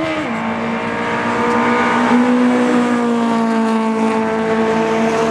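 Race car engine running at high revs. The pitch drops once just after the start, like a gear change, then holds nearly steady with a slight sag.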